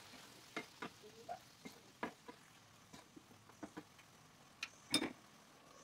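Wooden spatula stirring a thick eggplant curry in a non-stick frying pan: scattered light clicks and scrapes against the pan over a faint simmer, with a louder knock about five seconds in.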